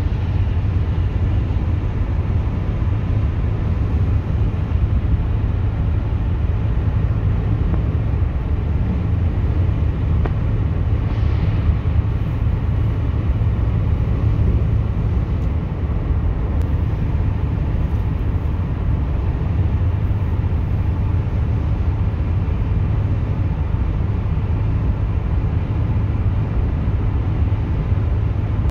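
Steady low rumble of a car at highway speed on a wet road, heard from inside the cabin: tyre and road noise.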